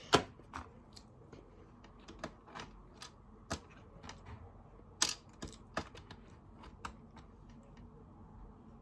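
Irregular sharp clicks and taps of small hard toy pieces being handled, about a dozen in all, loudest just after the start and about five seconds in.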